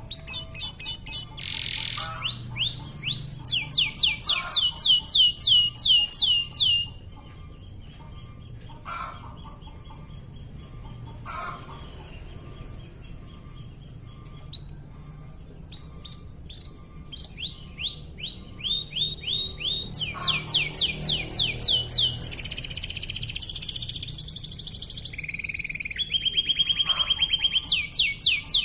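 Domestic canary singing in rapid trills, long runs of quickly repeated falling notes. The song breaks off after about seven seconds for a quieter stretch of scattered notes, then resumes with dense trills from about fifteen seconds in.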